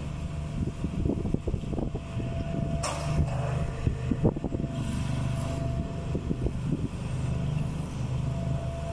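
Backhoe's diesel engine running steadily while lifting, with sharp knocks about three and four seconds in and a faint steady whine above the engine that comes and goes.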